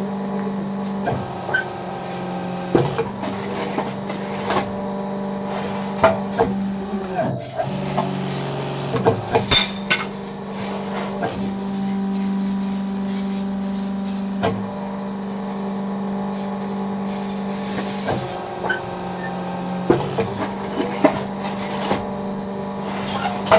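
Electric motor of a fly ash brick machine's hydraulic unit running with a steady hum, which drops in pitch for a moment about eight seconds in. Scattered metal clanks and knocks from the machine as its control levers are worked.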